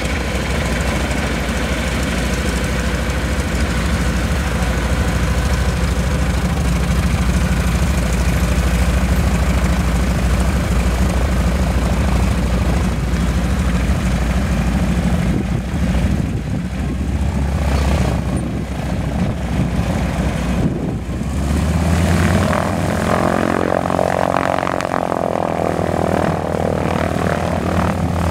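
North American SNJ trainer's Pratt & Whitney R-1340 nine-cylinder radial engine running at taxi power, its propeller turning, as the plane rolls by. The sound changes over the last several seconds as it passes and moves away.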